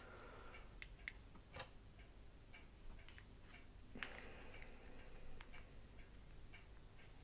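Faint, scattered small plastic clicks and taps from fingers handling a small wireless clip-on microphone and its clip, a few irregular clicks over a few seconds.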